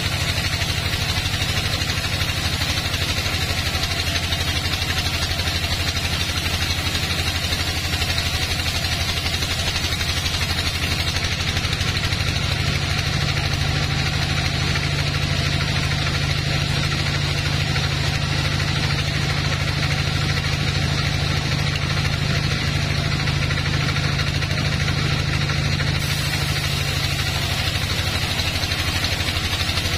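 Band sawmill running steadily, its vertical band-saw blade cutting lengthwise through a large waterlogged teak log: a constant motor hum with an even sawing noise above it, the low hum somewhat stronger through the middle.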